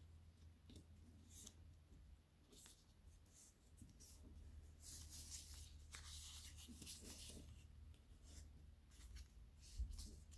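Faint rustling and crinkling of a sheet of origami paper being folded and creased by hand, in short scratchy strokes that are busiest about halfway through, over a steady low hum.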